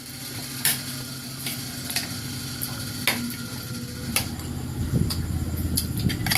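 Scattered light clicks and clinks of eating utensils against dishes during a meal, over a steady low hum.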